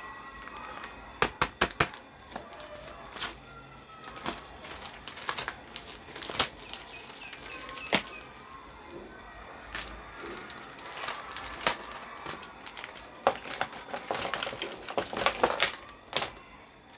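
Miniature toy kitchen pieces being handled during unboxing: a run of sharp clicks and taps, bunched in quick clusters about a second in and again near the end.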